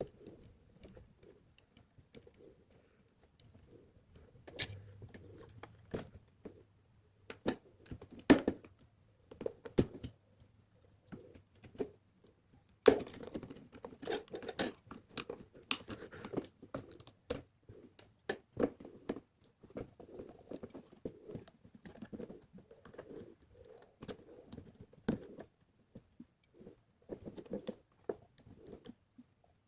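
Hands working with small electronic parts and wires: irregular clicks, taps and rustling, with a sharper knock about 13 seconds in.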